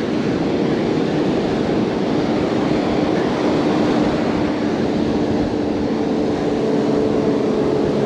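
Steady rush of ocean surf with wind on the microphone, and a faint, steady hum running underneath.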